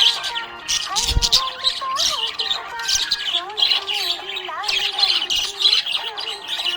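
Budgerigar warbling and chattering: a steady run of quick, scratchy chirps mixed with whistled notes that glide up and down.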